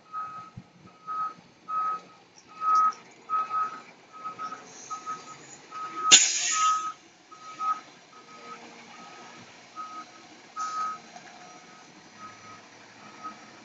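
Fire engine's reversing alarm beeping steadily, about two high beeps a second, as the truck backs in. About six seconds in there is a sharp, loud hiss of air from the truck, and a shorter one near eleven seconds.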